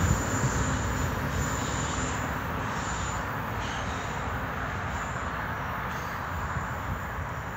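Train rolling away down the track: a steady rumble of wheels on rail that fades gradually.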